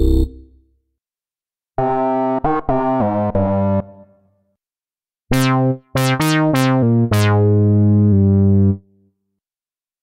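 Cherry Audio Dreamsynth software synthesizer playing a lead preset in two short phrases. About two seconds in comes a quick run of notes that decay away. After a pause come a few staccato notes, each opening with a bright downward filter sweep, ending on a held note that stops about a second before the next preset begins.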